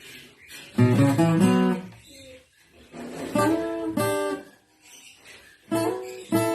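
Acoustic guitar strummed in three short bursts, each chord ringing about a second before the next.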